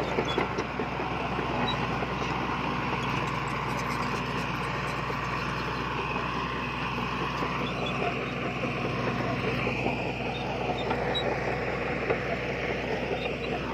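Diesel engine of heavy earthmoving machinery running steadily, a constant low engine hum with a noisy mechanical wash over it.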